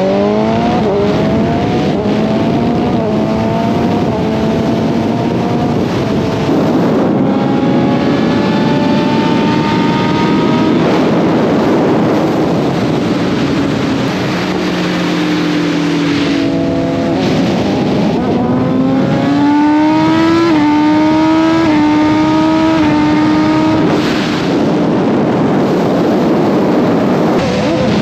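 BMW S1000RR inline-four sportbike engine under hard acceleration, its pitch climbing and dropping back at each upshift, over a constant rush of wind. It pulls through a run of gears at the start, holds lower and steadier in the middle, then accelerates again with quick upshifts before easing off near the end.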